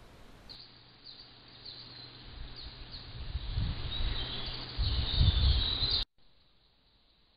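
Outdoor ambience by a river: small birds chirping repeatedly over a wash of noise that grows louder, with low irregular rumbling that becomes the loudest part near the end before it cuts off abruptly.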